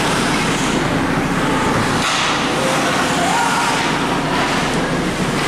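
Hockey rink ambience: a steady wash of arena noise with a few faint, indistinct voices in it.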